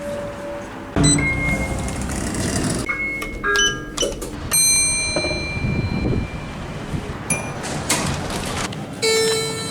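Elevator chimes and beeps from several different lifts in quick succession. Short electronic tones come first, then a longer ringing chime near the middle and a lower buzzy tone near the end.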